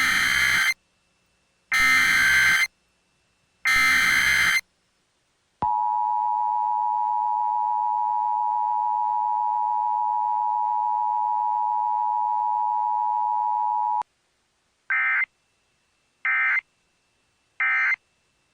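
Emergency Alert System signal: three one-second bursts of SAME header data, then the two-tone attention signal held steady for about eight seconds and cut off abruptly. Three shorter data bursts follow near the end, the end-of-message code.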